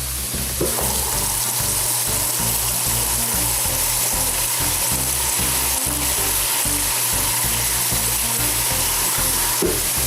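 Tomato stew sauce sizzling steadily in hot oil in a pot, with water just added to it.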